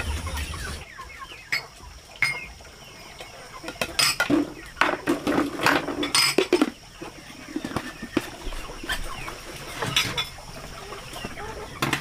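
Chickens clucking, with sharp knocks and clatter now and then.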